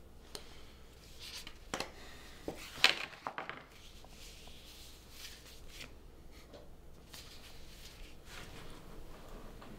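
Paper rustling as a folder is flipped open and its sheets handled on a table, with a sharp tap a little under three seconds in and softer rustles after.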